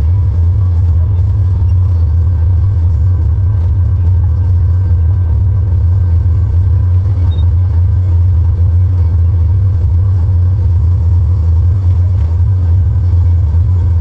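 Tractor engine running steadily under load while pulling a large square baler, a loud, constant low drone heard from inside the cab.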